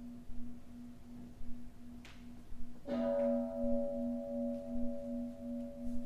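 Singing bowl ringing with a low tone that throbs about three times a second. It is struck again about three seconds in: higher tones ring out and fade while the low throb carries on.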